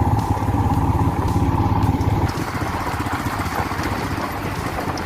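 An engine running with a steady, rapid putter, the sound dropping in level a little over two seconds in.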